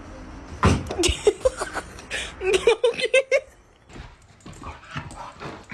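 A dog whimpering in a quick run of short, pitched yelps, after a few sharp knocks about a second in.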